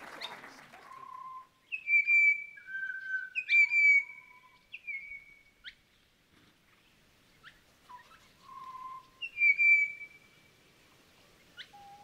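Songbird singing: clear whistled notes with short slides in pitch, in two phrases with a pause between them and a single note near the end.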